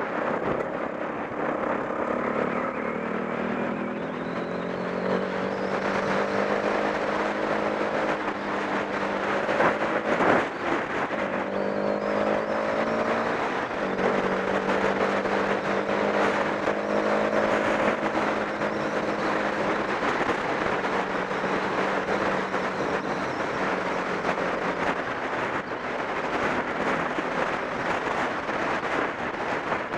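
Yamaha off-road motorcycle engine running as it is ridden, its pitch rising and falling with the throttle, over a steady noisy rush. A single sharp knock about ten seconds in.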